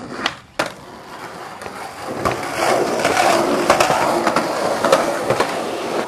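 Skateboard wheels rolling over rough pavement, the rolling noise growing louder from about two seconds in, with several sharp clacks of the board hitting the ground.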